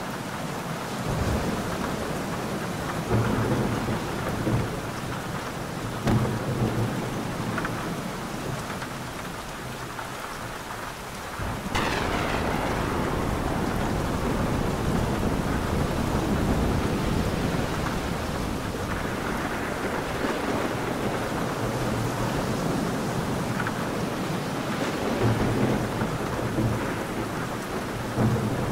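Thunderstorm: steady heavy rain with thunder. Low rumbles come and go in the first several seconds. About twelve seconds in a sudden, close clap breaks out and rolls into a long rumble, and more rumbles follow near the end.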